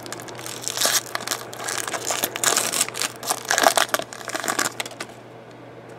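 Foil wrapper of a trading-card pack crinkling as it is handled and opened by hand, stopping about five seconds in.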